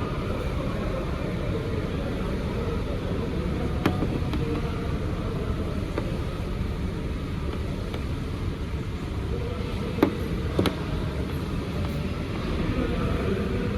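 Toyota Yaris engine running at idle, a steady low rumble. Three sharp clicks cut through it, one about four seconds in and two close together about ten seconds in.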